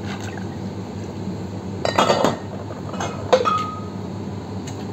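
Glass bottles and barware clinking as they are handled: a short clatter of knocks about two seconds in, then a single sharp clink that rings briefly a second later, over a steady low hum.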